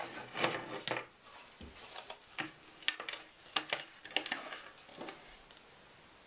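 Power supply cables and plastic connectors being handled, with a string of light clicks and clatters and some rustling; it settles down after about five seconds.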